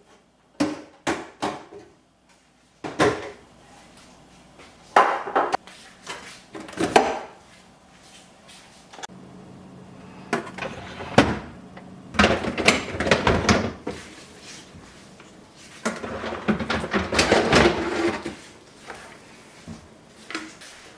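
Handling sounds from emptying and organising a refrigerator: a string of sharp clicks and knocks, then longer stretches of clatter and rustling as containers and food are moved. Drawers and doors are heard opening and closing among them.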